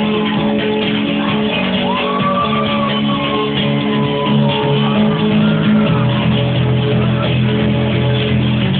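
Loud club music with held chords, over which a woman's voice makes drawn-out wailing noises that glide up and down in pitch, mostly in the middle of the stretch.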